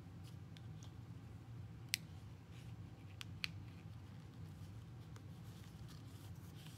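Hands working yarn through the warp strings of a cardboard loom and pressing the rows down: faint handling sounds with small scattered ticks and two sharper clicks about two and three and a half seconds in, over a steady low hum.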